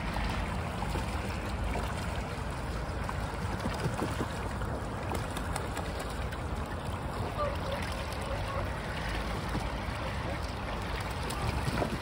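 Steady rush of water splashing and rippling from a flock of gulls bathing in open water.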